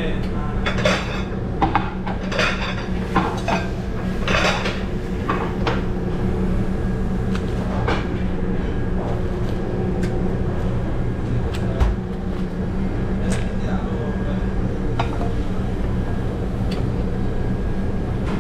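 Metal pans and utensils clattering and clinking on a busy cooking line, thickest in the first few seconds and then scattered knocks, over a steady low hum.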